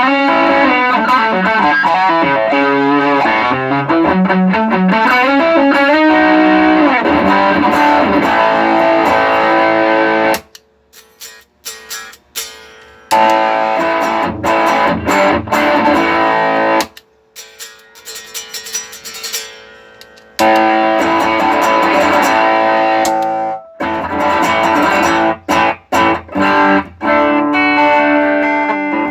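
Electric guitar played through effects pedals routed by a true-bypass loop switcher, with a distorted sound in a sound test of the switcher. The full sound drops away abruptly twice for two to three seconds, leaving only faint picked notes, then comes back.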